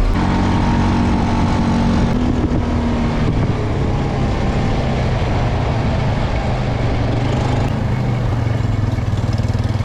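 Farm tractor engine running steadily while under way, an even drone with small shifts in pitch in the first few seconds.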